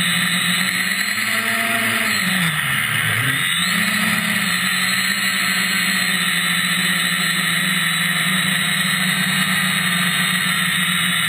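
Brushless motors and propellers of an FPV quadcopter (MT2206 motors on a 3S LiPo), heard from the onboard camera as a steady whine. About two seconds in, the pitch drops and then climbs back, as throttle is cut and applied again.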